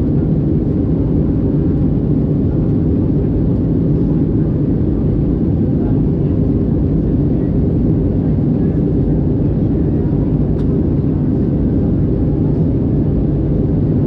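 Steady low rumble of an Airbus A320-214 in flight, heard inside the cabin by the wing: the hum of its CFM56 engines mixed with airflow noise, unchanging throughout.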